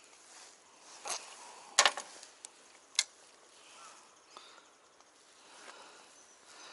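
A few sharp clicks and knocks of tackle being handled in an open plastic tackle box, the loudest a quick double knock about two seconds in, over faint steady hiss.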